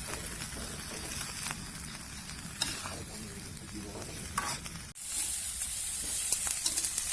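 Grasshoppers and crickets cooking in a wok of water, a steady sizzling hiss with a few sharp clicks. It breaks off suddenly about five seconds in and comes back louder.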